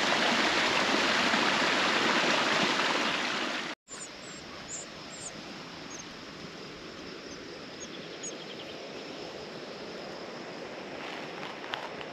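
Rushing water of a stream or waterfall, loud and steady. About four seconds in it cuts off abruptly to a much quieter outdoor ambience with a few short, high bird chirps.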